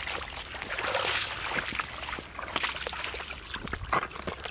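Feet squelching and splashing through shallow muddy water, an irregular run of wet sloshes and slaps.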